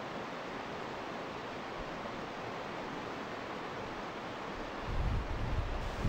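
Shallow river rapids rushing steadily over rocks. From about five seconds in, wind buffets the microphone with uneven low rumbling gusts.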